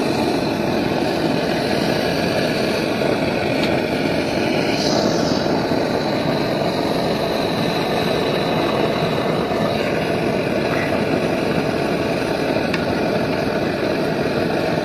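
An engine running steadily at idle, a constant drone that holds the same level throughout.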